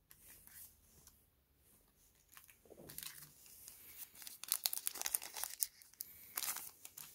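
Crinkling and rustling of a small shiny plastic Pokémon card pack wrapper as it is handled and pulled open, a dense crackle that starts a few seconds in.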